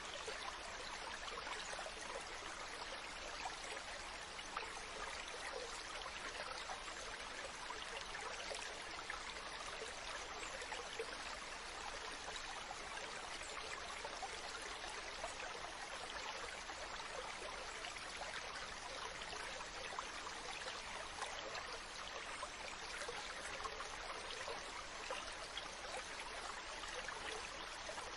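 Running water flowing steadily with a fine, continuous splashing, like a small stream.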